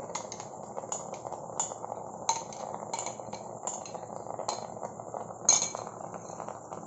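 A metal spoon clinking and scraping against a glass bowl and the rim of an aluminium pressure cooker as thick yogurt is scooped out into the pot. The clinks are sharp and irregular, the loudest about five and a half seconds in, over a steady sizzle from the frying mutton.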